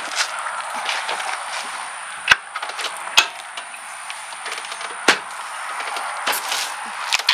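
Frame sections of a Cricket RX5 golf cart being worked apart by hand: four sharp knocks and clunks with lighter rattles in between, over a steady background hiss.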